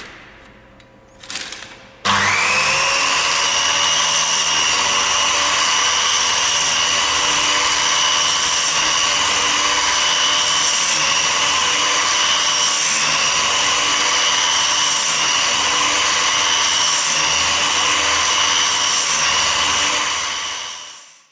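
A few clicks, then the belt-driven electric motor of a chainsaw sharpener switches on about two seconds in and spins up. It runs steadily with the grinding wheel working the saw chain, in a cycle that repeats about every two seconds as the automatic feed advances the chain tooth by tooth. The sound fades out near the end.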